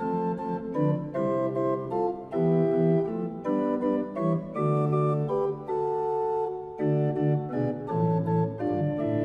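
Positive (chest) organ built by Orgelbau Schumacher, tuned in quarter-comma meantone, playing several notes at once, with notes held and changing every fraction of a second.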